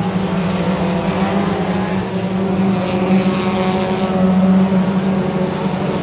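A field of front-wheel-drive dirt-track race cars running hard around the oval, their engines a steady, overlapping drone. One car passes close, louder and brighter, about three to four seconds in.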